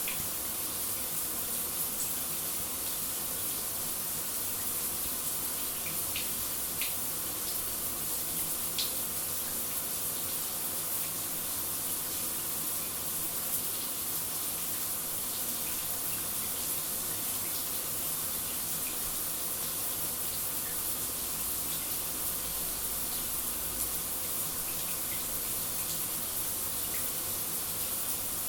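Shower running: a steady hiss of falling water spray, strongest in the high range, with a few faint ticks of drops mixed in.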